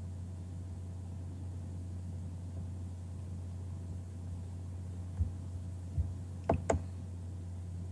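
Steady low electrical hum on the call audio, with four short clicks in the last three seconds, like a computer mouse being clicked while working the screen-sharing controls.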